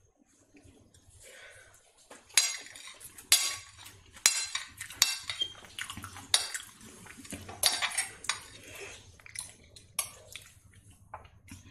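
Steel spoon and fork clinking and scraping against a plate as noodles are gathered up. The sharp clinks start about two seconds in, come in a quick irregular string, and thin out near the end.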